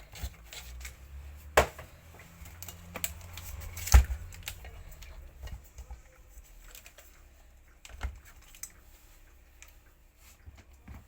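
Hard parts of an industrial vacuum cleaner being handled during reassembly: scattered clicks and taps, with sharp knocks about one and a half and four seconds in (the second the loudest) and another near eight seconds, over a low rumble in the first half.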